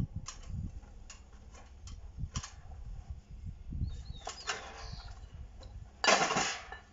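Scattered metallic clicks and a short creak as a Stilson pipe wrench, levered with a pipe, cold-twists a steel bar clamped in a bench vise. About six seconds in comes a louder, brief metallic clatter at the vise.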